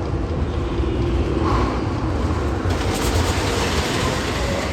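Magnum XL 200 roller coaster train rumbling steadily along its track, with a rushing hiss joining in about halfway through.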